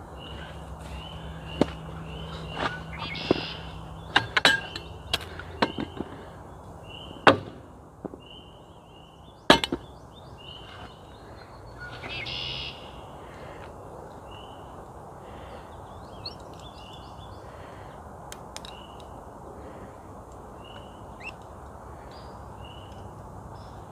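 Camp cookware and a butane gas canister being handled on an ATV's plastic cargo rack while setting up to brew coffee: sharp clicks and knocks, mostly in the first ten seconds, the loudest about seven and nine and a half seconds in. A bird repeats short, high chirps about once a second throughout.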